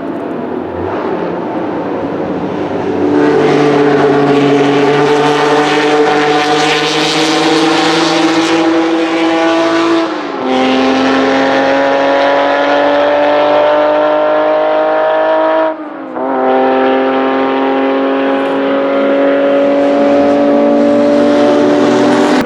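Porsche 906 Carrera 6's two-litre 901/20 flat-six accelerating hard, its pitch climbing steadily through the revs. It gets louder about three seconds in, and the pitch drops sharply at two upshifts, about ten seconds in and again about sixteen seconds in.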